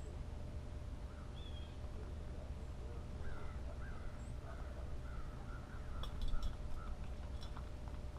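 Blue jays giving faint, harsh calls through the middle, then a quick cluster of sharp taps near the end as a bird works at the metal peanut feeder, over a steady low rumble.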